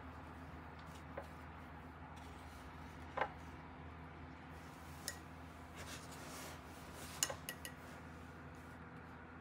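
Light clicks and clinks of small objects being handled on a hard tabletop, with a brief soft rustle, over a steady low hum. There are single taps about a second in, near three seconds and near five seconds, and a quick cluster of clicks just after seven seconds.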